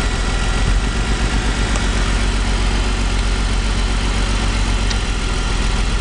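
BMW E46 inline-six idling with a misfire while ignition coils are unplugged one at a time for a power balance test. The misfire is traced to cylinder four, which makes no change in the idle when its coil is pulled.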